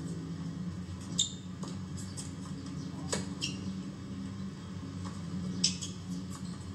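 Tennis rally: sharp racket-on-ball strikes roughly two seconds apart, three loud ones with the last the loudest, and fainter ball bounces between them, over a steady low hum.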